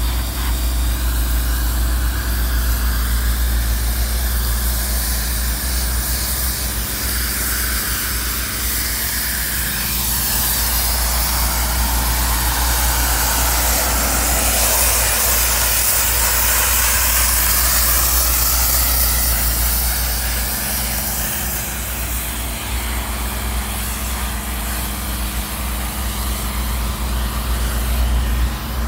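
DOFF superheated-steam cleaner at work on stonework: steam hissing from the lance over the steady low hum of the machine's engine, the hiss swelling about halfway through.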